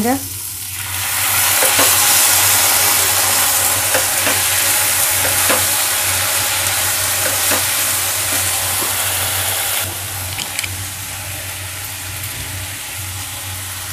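Sliced onions and capsicum sizzling in hot oil in a frying pan, with a spatula scraping and clicking against the pan as they are stirred. The sizzle flares up about a second in as soy sauce hits the hot pan, and eases off near the end.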